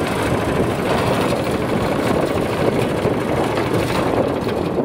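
Single-cylinder four-stroke 15 hp Zongshen engine of a Pomor motor towing dog running steadily while the machine is tipped onto its side. It cuts out at the very end, as the tilt trips the oil-level sensor in the crankcase.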